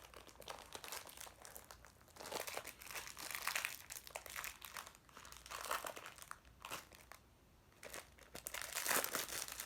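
Crinkly packaging rustling and crackling in irregular bursts as a fidget toy is worked out of it, with a short lull near the end.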